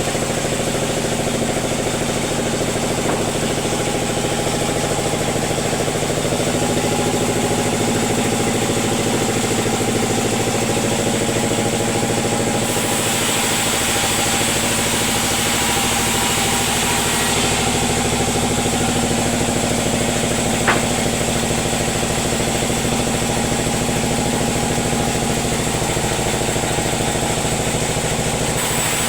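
A sawmill's engine runs steadily, with no cut under way, and its note shifts slightly about halfway through. There is a single sharp click about two-thirds of the way in.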